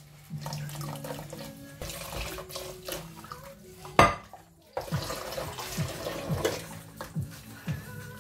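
Dishes being washed by hand in a sink: tap water running and splashing into a washing-up bowl, a sponge scrubbing plates, and crockery clinking. There is a single loud knock about four seconds in.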